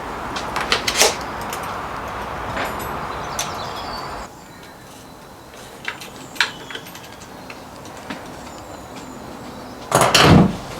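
Hand-tool work on bicycle parts: a steady rasping, filing-like noise with light metal clicks that stops abruptly about four seconds in, then scattered small tool clicks and a loud short knock near the end.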